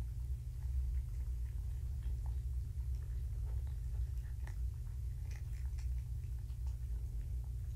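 Faint scattered clicks and rustles from kittens moving about, over a steady low hum.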